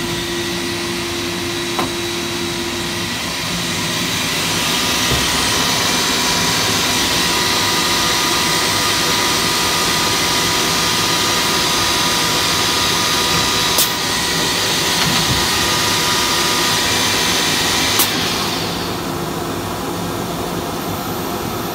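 Nextech V300 vertical CNC machining center running, a steady rushing machine noise with a faint whine. It swells about four seconds in and falls back near the end, with a few sharp clicks.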